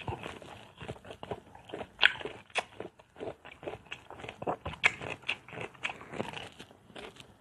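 A person biting into and chewing mango slices: many small crunches and mouth clicks at an uneven pace.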